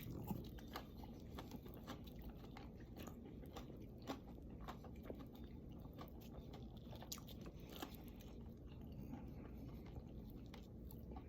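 Faint chewing of a mouthful of fried chicken, with small crunches and clicks from the crispy coating.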